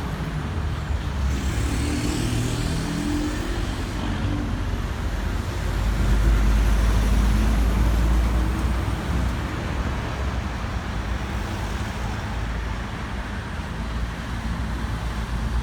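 Motor vehicle running amid road traffic noise, a steady low rumble with rushing noise. It swells louder from about six to nine seconds in, as a vehicle draws close or passes.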